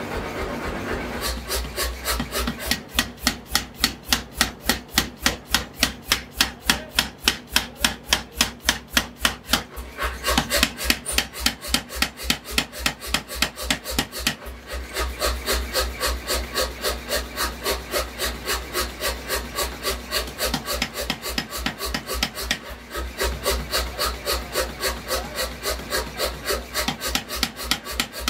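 Mechanical power hammer striking a red-hot steel bar for a sword blade in rapid, evenly spaced blows, several a second, over the steady hum of the machine's drive. The blows ease off briefly a few times, then resume.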